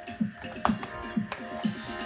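Background electronic music with a steady beat: a deep kick that drops in pitch, about two beats a second.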